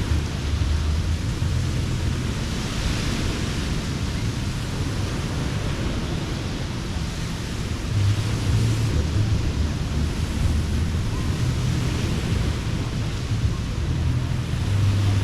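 Ocean surf washing on a sandy beach, a steady hiss that swells about three seconds in, with wind rumbling on the microphone.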